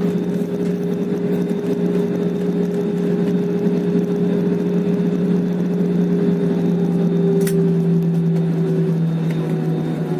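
Airliner's jet engines and airflow heard from inside the passenger cabin after landing: a steady loud rush with a droning hum that dips slightly in pitch near the end as the engines wind down. There is a single click about seven seconds in.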